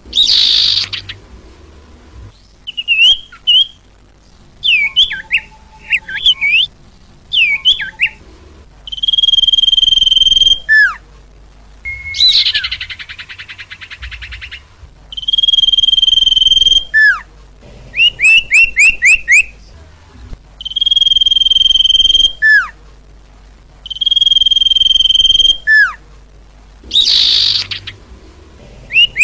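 Sirtu bird song played as a lure recording: long, level, piercing whistles alternate with quick runs of down-slurred notes and short chattering buzzes, the same phrases coming round again and again.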